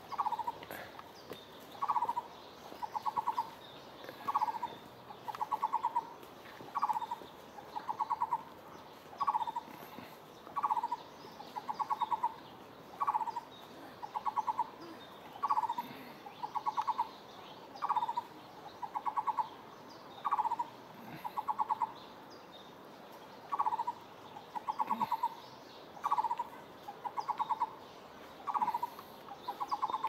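An unseen animal in the tree canopy calling over and over, about once a second, each call a short note or a quick rattle. There is a brief pause about two-thirds through.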